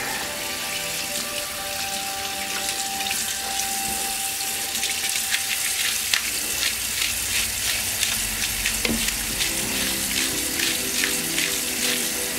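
Tap water running from a bathroom faucet into the sink while a wet, shampooed wave brush is rinsed. From about halfway on, quick scratchy strokes are heard as a comb is dragged through the brush's bristles.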